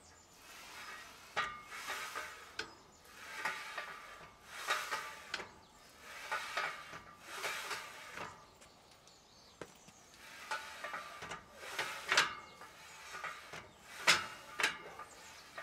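Smith machine bar sliding up and down its guide rods: about a dozen short metallic scraping strokes, roughly one a second, with sharp clicks in between.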